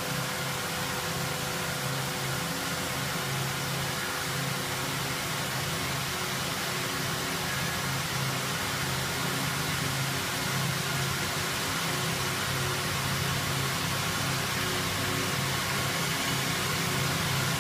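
LB-2000 two-ply yarn twisting machine running: a steady hiss with a low hum under it, as its drums wind twisted yarn onto packages.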